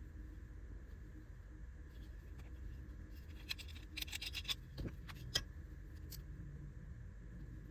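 Faint handling of small camera accessories and their packaging: a quick run of light plastic clicks and taps a little past the middle, then a few single sharper clicks, over low steady room noise.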